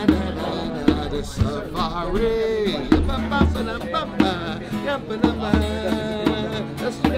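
Live djembe hand drumming: a steady beat of sharp slaps with deep bass tones, and a voice singing over the drum.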